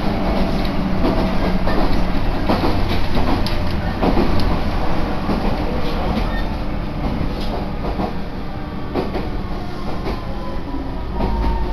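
Local passenger train running, heard from inside the carriage: a steady rumble with sharp clicks of the wheels over rail joints. In the second half a faint whine slowly falls in pitch as the train slows for the next station.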